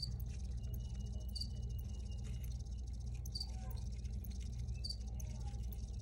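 Crickets chirping in a steady high trilling chorus, with a louder chirp about every one and a half seconds, over a steady low rumble.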